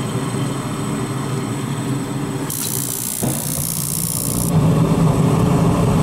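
Gas furnace starting up, a steady low mechanical hum. A hiss runs for about two seconds midway, a sharp click comes a little past three seconds, and from about four and a half seconds the low hum grows louder as the furnace fires, a start-up that sounds good after the failed thermal overload switch was replaced.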